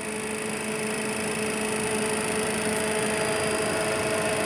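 Steady hum and hiss of a powered-up Cessna Citation cockpit's avionics and electrical systems, with a steady whine and a second, higher whine growing stronger about three seconds in.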